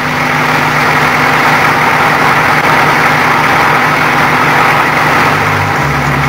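Steady, loud engine noise of heavy vehicles running, a dense rushing sound, with a few low steady notes held under it.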